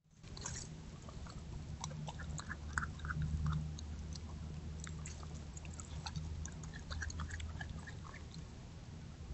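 Coyote chewing and biting on a deer carcass's guts and bones: irregular wet crunches and cracks scattered through the whole stretch, over a steady low hum.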